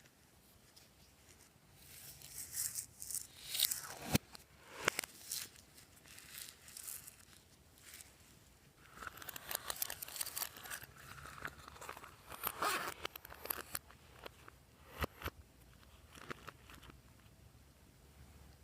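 Glossy slime being mixed and squished, making sticky crackling, popping and clicking sounds in two bouts, with a few sharp clicks.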